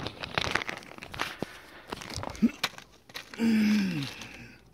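Small plastic bag crinkling and rustling while black plastic push clips are tipped out of it, with many small clicks and taps. About three and a half seconds in, a person's voice gives a short falling sound.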